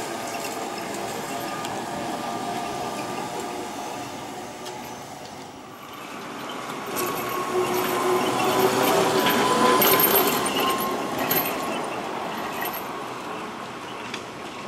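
ZiU-9 (ZiU-682B) trolleybus driving past. Tyre and road noise swells as it comes close, with a steady whine from its electric traction motor, then fades as it pulls away.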